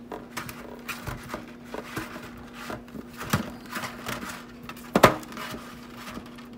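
Hands rubbing and turning olive-oiled sweet potatoes in a metal baking pan: irregular wet squishing and handling noises, with light knocks of the potatoes against the pan and one louder knock about five seconds in.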